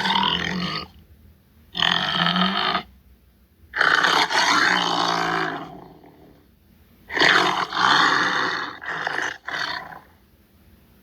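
Tiger roaring and growling: about five loud, rough calls, each a second or two long with short pauses between them, the longest one about four seconds in and trailing off slowly.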